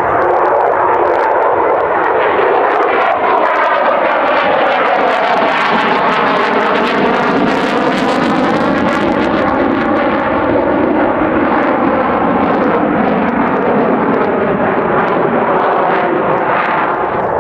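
F-16 fighter jet's engine noise during a display pass: a loud, steady rush that takes on a slowly sweeping, phasing tone through the middle.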